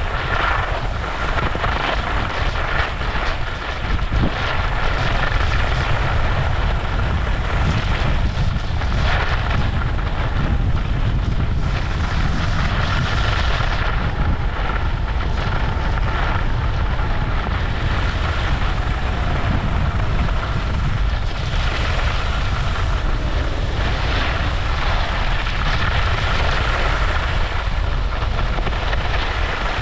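Wind rushing over the body-worn camera's microphone while skiing downhill, with skis scraping and hissing over groomed snow that swells every few seconds on the turns.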